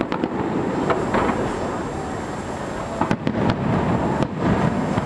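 Display fireworks bursting overhead: several sharp bangs at irregular intervals, bunched near the start and again about three to four seconds in, over a continuous low rumble.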